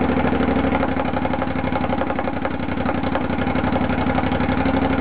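Triumph Scrambler's air-cooled 865 cc, 270-degree parallel-twin engine idling with an even, steady beat. It exhausts through chrome car tailpipe extenders fitted in place of the mufflers.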